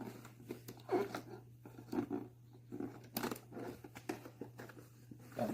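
Packaging being handled and pulled open, crinkling and tearing in irregular bursts, over a low steady hum.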